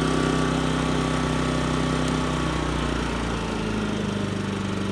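Champion 3400 dual fuel inverter generator's single-cylinder engine running steadily on propane, then dropping to a lower, slightly quieter speed about three seconds in as economy mode throttles it back.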